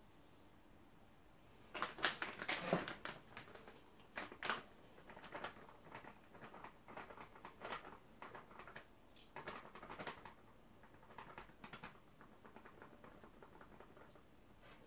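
Rustling and crinkling of a plastic sachet being handled, with small crackles and clicks. The loudest crackling comes about two seconds in, then it goes on in irregular spurts until about twelve seconds in.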